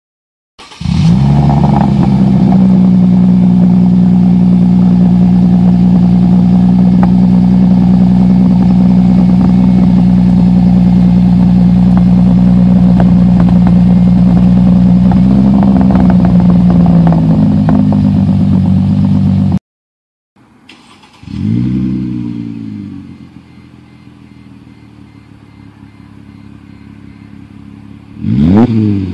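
Mercedes-Benz W203 C-Class exhaust idling loud and steady close to the tailpipe, the engine speed rising slightly about fifteen seconds in. After a cut it is heard from farther back, quieter, and is revved briefly twice, each rev rising and then falling back to idle.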